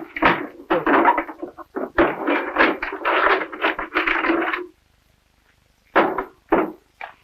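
Hammer blows on a wooden oak barrel in quick succession, several a second for about four and a half seconds. After a short pause come two more single strikes near the end.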